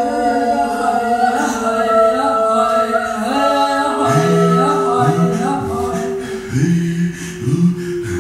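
A small group of voices improvising a cappella, several of them holding long overlapping notes, one slowly sinking in pitch. From about four seconds in, a low voice adds a short rising swoop, repeated about once a second.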